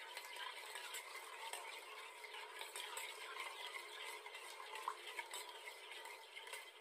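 A metal spoon stirring sugar and water in a small saucepan, a soft steady scraping with scattered light clinks of the spoon against the pan.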